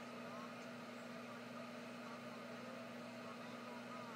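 Reef aquarium's pumps running: a quiet, steady low hum with an even hiss.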